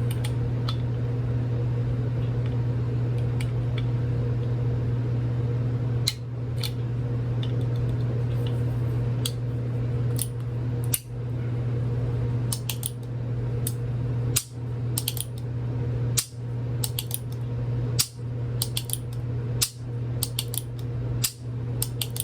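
Heritage Barkeep .22 Magnum single-action revolver being put back together: sharp small metallic clicks, a few at first and then coming quickly from about halfway on, as the cylinder pin is seated and the action is worked. A steady low hum runs underneath.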